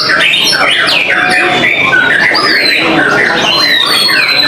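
Several white-rumped shamas (murai batu) in contest song at once: a dense, overlapping stream of loud whistles, rapid chattering phrases and drawn-out high whistled notes.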